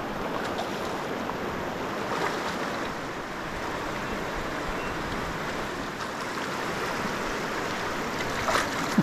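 Steady rushing of a shallow, rocky river's current, with a brief louder burst about eight and a half seconds in.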